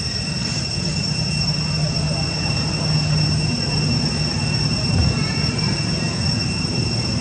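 Steady high-pitched insect drone, typical of cicadas, unbroken throughout, over a low rumble.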